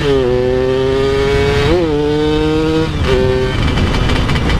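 Motorcycle engine pulling at high revs, its pitch slowly climbing with a brief blip partway through, then dropping about three seconds in, as at a gear change or easing off the throttle.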